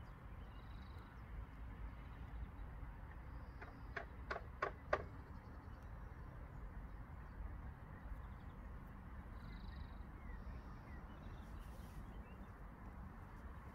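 Outdoor ambience with a steady low rumble. About four seconds in, a bird gives four short, sharp calls in quick succession, and faint high chirps come now and then.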